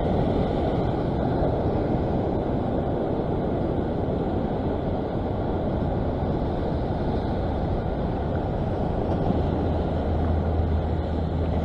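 Ocean surf breaking and washing over a rock ledge, mixed with wind buffeting the microphone: a steady, low, rushing noise, with a stronger low gust about ten seconds in.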